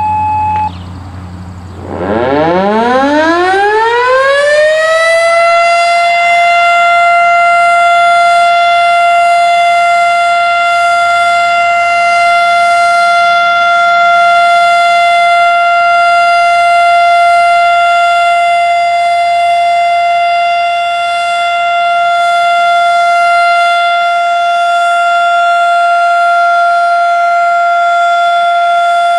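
Erick 2 hp fire siren winding up about two seconds in, its pitch climbing for a few seconds, then holding one steady wail on full alert. A short steady beep stops just before the wind-up.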